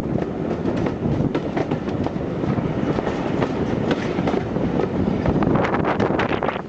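Train hauled by an A4 Pacific steam locomotive rolling by, its wheels clicking and knocking over the rail joints.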